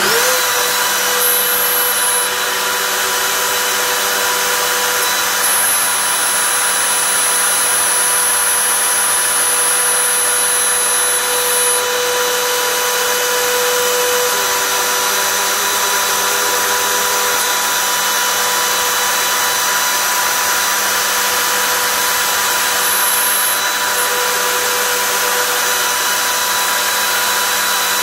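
Makita RT0700 compact router spinning a 5 mm two-flute end mill at about 30,000 rpm, milling 2 mm deep into an aluminium bar. It gives a loud, steady high whine with cutting noise over it.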